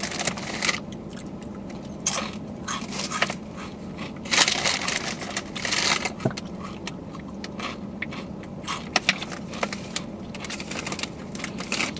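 Crunching and crackling of Takis Fuego rolled tortilla chips being chewed, as scattered sharp clicks. A hand rummages in the chip bag, making longer rustles, the biggest a little past the middle.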